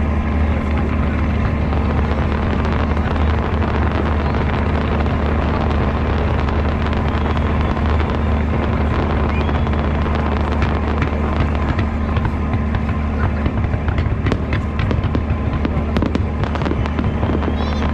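Fireworks display: shells bursting, with a dense run of sharp crackles and pops in the second half, over a steady low rumble.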